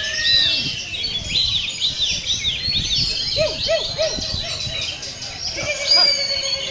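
Many caged songbirds singing at once in the overlapping din of a songbird contest: quick runs of rising-and-falling notes, lower looping notes, and one long high whistle near the end.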